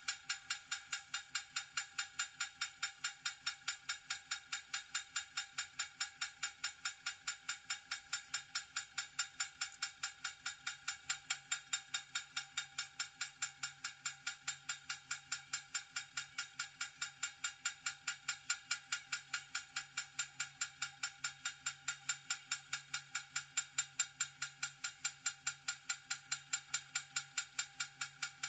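Level crossing warning bell ringing over and over at an even pace, about two and a half bright ringing strokes a second: the crossing alarm sounding while the signal is lit and the barriers are down.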